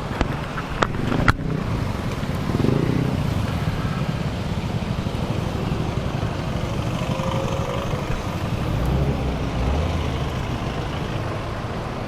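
Road traffic on a busy city boulevard, a steady wash of passing vehicle engines and tyres, with a few sharp clicks in the first second and a half.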